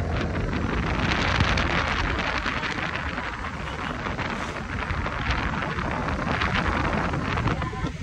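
Wind rushing over the microphone of a moving motor scooter, with a steady low rumble from the ride underneath.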